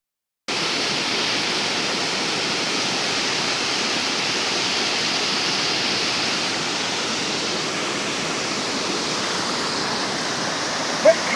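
Steady, even rush of a waterfall about 35 metres high, with a short pitched sound near the end.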